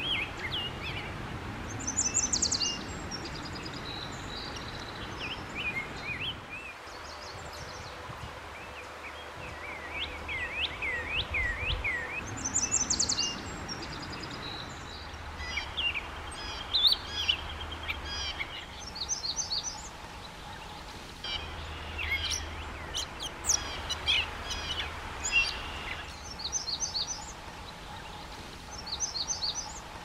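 Several songbirds singing over one another in a spring chorus: quick clusters of very high notes, sweeping whistled phrases and scattered chirps, with a low steady background rumble.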